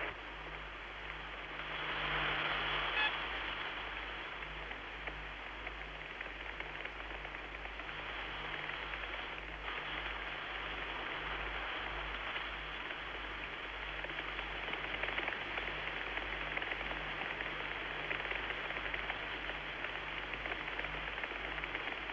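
Steady rushing hiss with a low hum underneath, swelling slightly about two seconds in.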